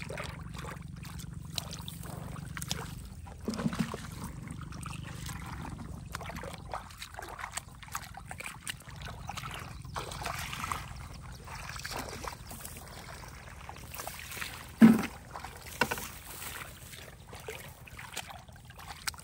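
Shallow water and mud sloshing and splashing, with scattered knocks and one loud thump about fifteen seconds in. A low steady hum fades out about seven seconds in.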